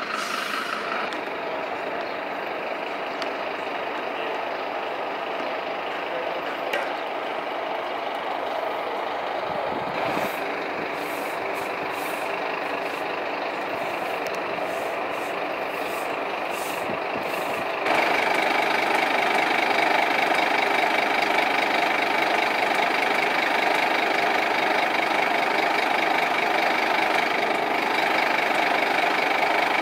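Scania fire engine's diesel engine idling steadily. A stiff broom scrapes across the road in strokes, and the engine suddenly sounds louder and closer a little past halfway.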